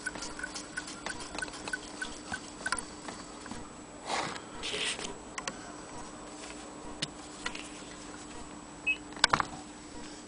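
Antique Willcox & Gibbs chain-stitch sewing machine stitching, an even ticking of about four or five clicks a second that stops about three seconds in. Then handling of the machine and cloth: a rustle, a few light clicks, and a sharp cluster of knocks near the end.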